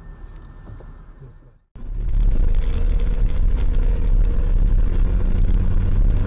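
Car cabin noise as recorded by a dashcam: a quiet low rumble cuts to silence just under two seconds in, then a much louder, steady low rumble of engine and road noise from a car driving along at speed.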